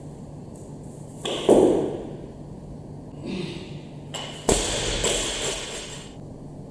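Barbell snatch with bumper plates: about a second and a half in, the lifter's feet stamp down and the plates clatter as the bar is pulled overhead. About three seconds later the loaded bar comes down onto the platform with a sharp bang, then the plates and bar ring and rattle for over a second.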